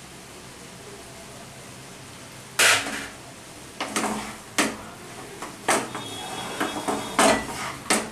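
Wooden spatula knocking and scraping against a non-stick wok while stirring ash gourd curry with grated coconut: a string of irregular clatters starting about two and a half seconds in, the first the loudest.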